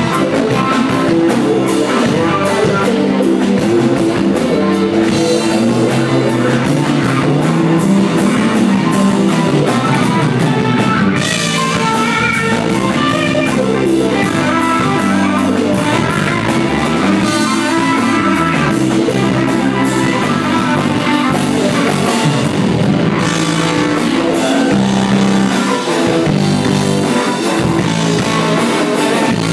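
Live rock band playing an instrumental passage: electric guitars, electric bass and drum kit.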